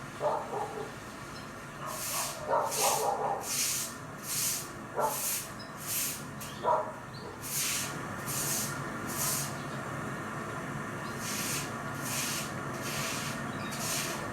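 A brush scrubbing in quick, even strokes, about two a second, in three runs with short pauses between them. A dog barks a few times during the first few seconds.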